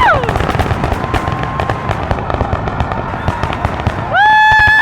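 Fireworks finale: dense rapid crackling and popping from many shells bursting at once. Near the end a loud, steady high tone with a horn-like edge is held for over a second, and a similar tone slides down just at the start.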